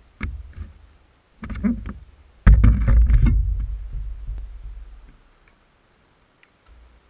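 Knocks and rattles of a quadcopter and its mounted camera being handled and set down on a concrete pavement, with the loudest thump about two and a half seconds in and a low rumble fading out after it.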